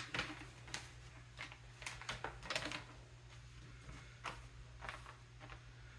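Irregular light clicks and knocks of step stool parts being handled and fitted together during assembly.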